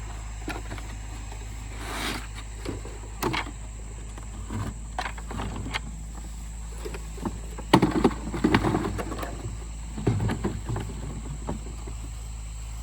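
Potatoes knocking and tumbling into a bucket: scattered knocks, with a louder clattering run about eight seconds in and another shortly after.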